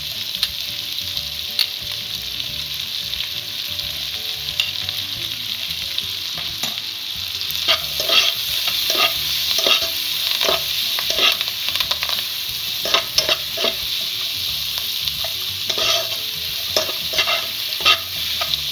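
Sliced onions, curry leaves and garlic sizzling steadily in hot oil in a nonstick wok. From about seven seconds in, a metal slotted spatula scrapes and taps against the pan again and again as they are stirred.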